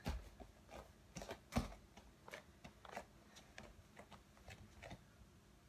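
Bare feet padding and landing on a thin gymnastics mat: scattered soft taps, with light thuds just after the start and about a second and a half in.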